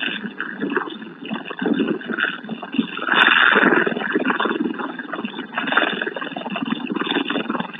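Bell Boeing V-22 Osprey's twin turboshaft engines and proprotors running while the tiltrotor taxis, a rough, fluctuating noise that swells louder about three seconds in.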